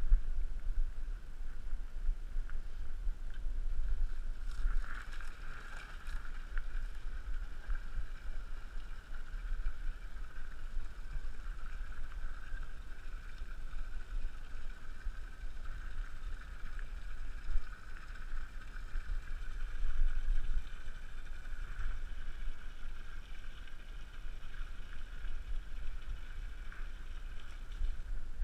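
Wind and movement rumbling on the microphone of a camera carried low outdoors, under a steady high-pitched drone.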